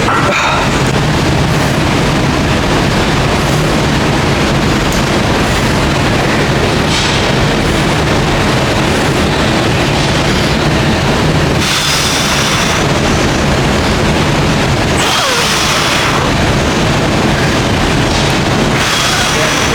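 Loud, dense background music with a heavy bass that stays at a constant level throughout.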